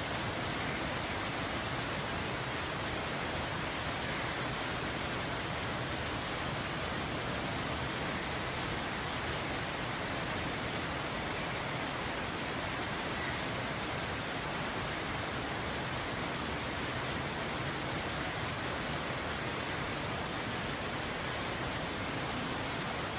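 Steady rain falling: an even, unbroken hiss with no single drops, gusts or changes standing out.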